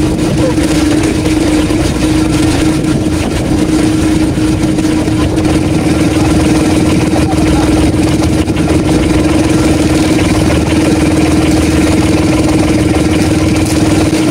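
Outrigger fishing boat's engine running steadily, a constant drone.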